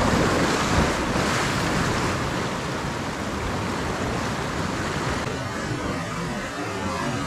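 Sea waves washing and breaking over shore rocks, with wind buffeting the microphone; the surf is loudest in the first couple of seconds and eases off later.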